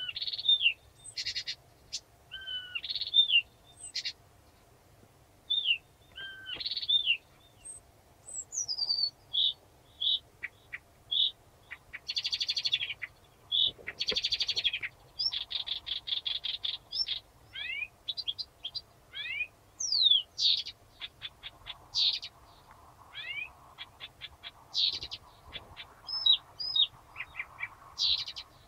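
Blyth's reed warbler singing: a slow, varied song of short phrases with brief pauses, mixing whistled slurred notes, notes repeated two or three times, fast dry ticking runs and quick falling glides.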